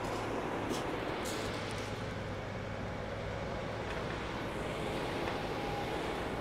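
Steady outdoor ambience on a shingle beach, gentle surf washing on the stones, with a couple of faint clicks about a second in.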